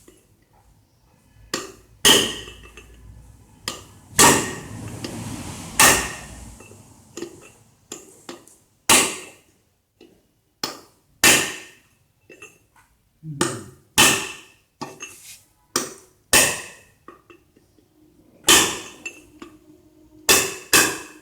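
Repeated hammer blows, metal on metal, driving the ball bearing out of a tractor clutch housing. The strikes come one every second or two, each ringing briefly.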